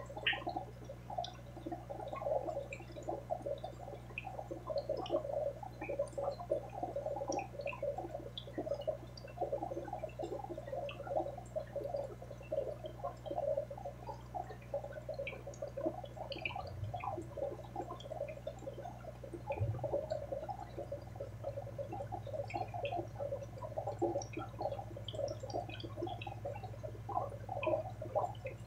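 Aquarium water bubbling and gurgling steadily over the low, steady hum of a pump.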